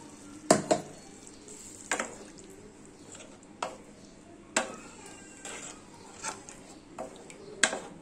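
Spatula stirring a thin potato curry in a kadai, clinking and scraping against the pan about once a second.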